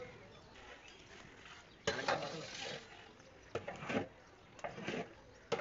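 A long metal paddle stirring rice in a large metal cooking pot, scraping and knocking against the pot, with four sharp clanks, the first about two seconds in.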